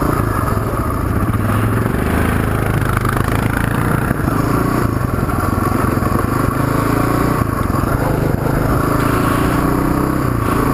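Suzuki DR350 dual-sport motorcycle's single-cylinder engine running as the bike rides along a gravel road, its pitch shifting a little with the throttle.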